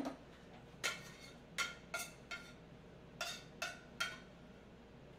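Metal tongs clinking against a stainless steel sauté pan as cooked kale is picked out of it: about seven short, ringing metallic clinks, irregularly spaced over the first four seconds.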